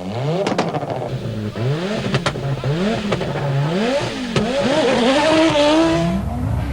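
Audi Sport quattro S1 rally car's turbocharged inline five-cylinder engine revving hard, its pitch climbing and dropping back about once a second, with several sharp cracks. Near the end a longer rising note comes with a loud hiss, then the engine settles to a steadier, lower note.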